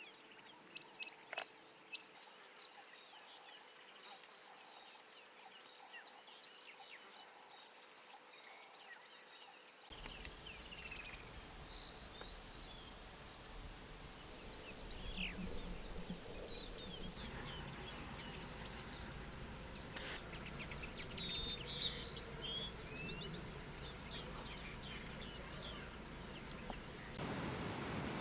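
Dawn chorus of many birds calling at once, short chirps and whistles overlapping, with a faint steady insect hum beneath. From about a third of the way in, a low rumble of wind noise joins it.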